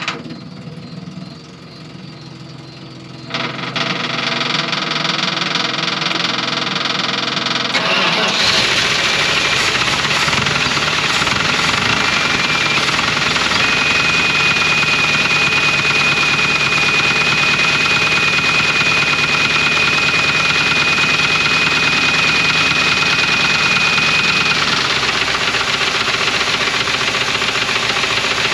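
A 1980 Dodge truck's 360 V8 is cranked over, catches about eight seconds in, and keeps running with a loud knocking that is the truck's known rod knock. A steady high squeal rides over the engine from about twelve seconds in until it stops a few seconds before the end, when the engine eases off slightly.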